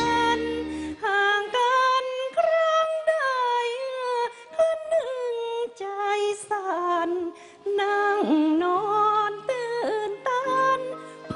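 A woman singing a Thai classical vocal line, largely unaccompanied, with long held notes that slide and waver in pitch. A Thai classical ensemble finishes a phrase about a second in and comes back with steady low notes near the end.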